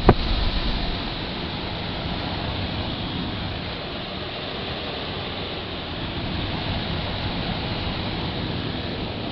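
Fedders 12,000 BTU window air conditioner running, its freshly repaired blower motor and fan pushing a steady rush of air. A brief knock sounds at the very start.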